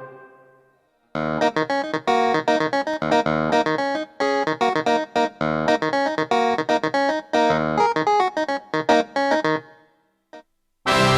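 Hammond SK PRO keyboard playing a piano-type preset: a fast, rhythmic run of short, detached chords over bass notes that stops about ten seconds in. Just before the end, a dense held sound from the next preset comes in.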